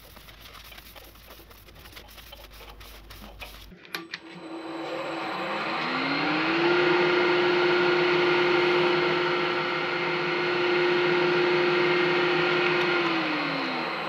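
Laguna 1836 wood lathe spinning up about four seconds in, its motor whine rising in pitch, then running steadily while a paper towel rubs against the spinning workpiece, and winding down with a falling whine near the end. Before it starts, a few faint handling clicks.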